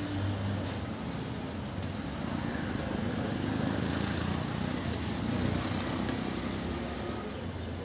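Steady din of a busy open-air market with a low rumble, and a few faint sharp clicks as a fish is cut against a boti, a fixed curved blade.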